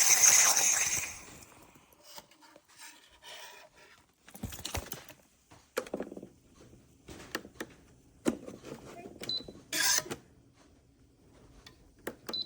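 Espresso machine steam wand hissing, dying away about a second in, followed by scattered light clicks and knocks.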